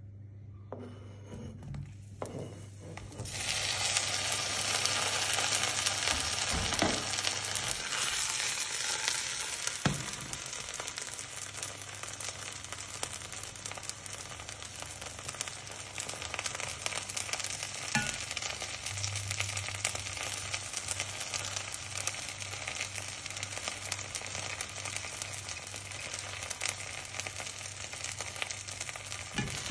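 Slices of common stinkhorn egg frying in hot fat in a steel frying pan: a loud sizzle starts suddenly about three seconds in and carries on steadily, with a few clinks of a spoon stirring.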